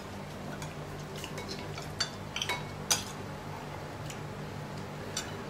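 Spoon and fork clinking against a ceramic plate as someone eats: a few sharp clicks about two to three seconds in and one more near the end.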